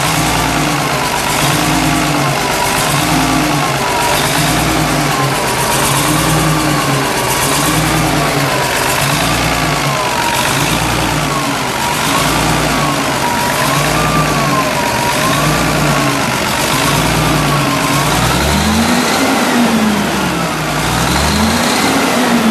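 Cummins C180 turbo diesel engine running at idle, its speed rising and falling slightly in an even rhythm about once every second and a bit. Near the end it is revved up and back down twice.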